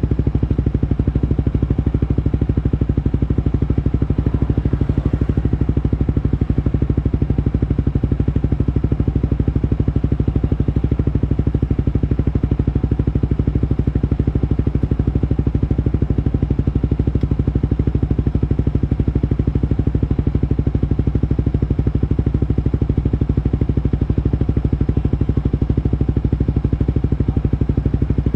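Motorcycle engine idling steadily at a stop, its pitch unchanging.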